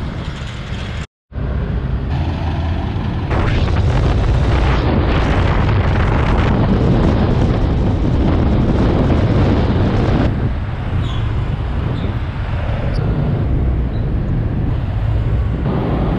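Road traffic with heavy wind rumble on the microphone during a ride through city traffic. It is loudest in the middle and cuts out briefly about a second in.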